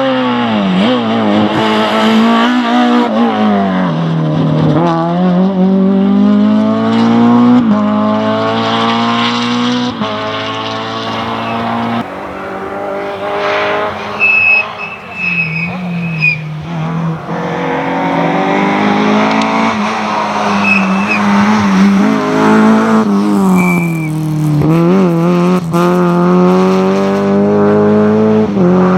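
Rally car engine revving hard, its pitch climbing and dropping off again and again as it runs through the gears and lifts for corners. Short high tyre squeals come in around the middle.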